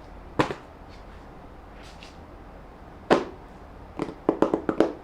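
Clicks and taps on an iPad Magic Keyboard: a few single sharp clicks, then a quick run of key clicks near the end, like typing.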